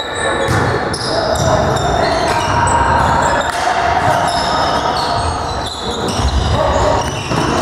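Volleyball rally on a hard gym court: many short, high squeaks of sneakers on the floor, with thuds of the ball being hit.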